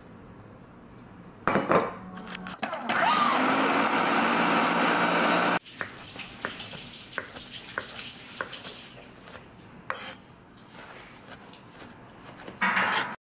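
Countertop blender running for a few seconds while blending onion, garlic and ginger, then cutting off suddenly. Then a chef's knife mincing onion on a wooden cutting board, with irregular light knocks of the blade on the wood.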